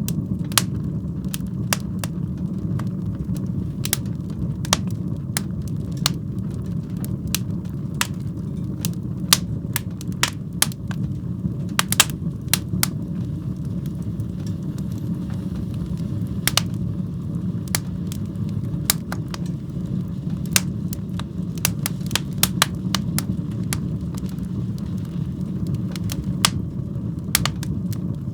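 Wood fire burning in a fireplace: a steady low rumble of the flames with sharp, irregular pops and crackles from the burning logs.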